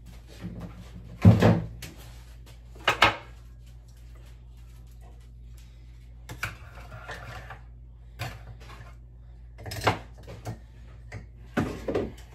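Kitchen handling sounds: a series of separate knocks and clatters as containers, a strainer and a plastic lid are picked up and set down on the counter, the loudest knock about a second in and another about two seconds later.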